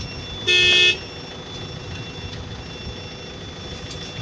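A vehicle horn honks once, briefly, about half a second in, over a steady high-pitched electronic beeping tone and low traffic rumble.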